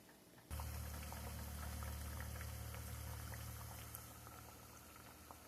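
Food frying in a pan of hot grease: steady sizzling with many small scattered crackles and pops, starting abruptly about half a second in, over a steady low hum.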